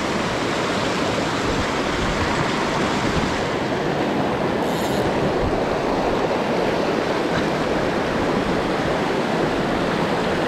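Clear Creek rushing fast over boulders and through whitewater riffles: a steady, unbroken rushing of water.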